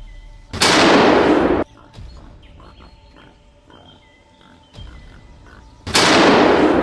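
Two loud, harsh bursts of noise, each lasting about a second and cutting off suddenly, the first about half a second in and the second near the end, over faint background music.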